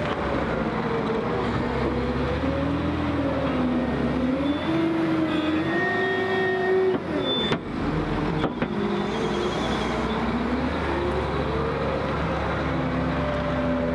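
Liebherr L566 wheel loader's diesel engine running under heavy load, its pitch rising and falling repeatedly as the bucket is driven into a soil pile, filled and lifted.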